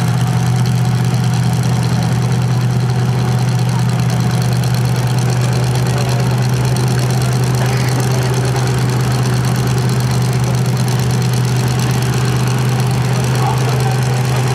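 Engines idling: a constant, unchanging low drone.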